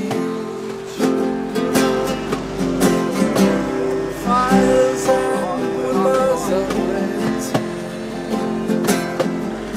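Music with a strummed acoustic guitar, played steadily with a melody over the chords.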